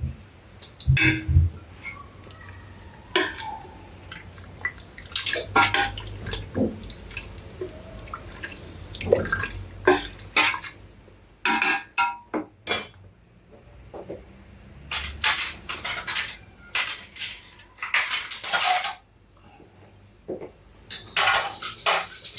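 A utensil clinking and knocking against a cooking pot, in many separate irregular strikes with short scrapes between them, as cooked food is lifted out of the pot.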